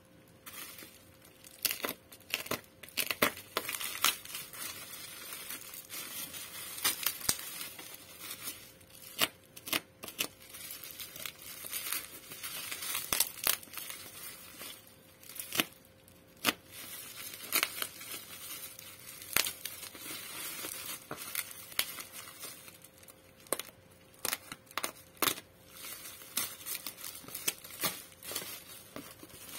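Clear plastic wrap and bubble wrap being cut with a box cutter and pulled off a taped cardboard box, crinkling and tearing with many sharp, irregular crackles.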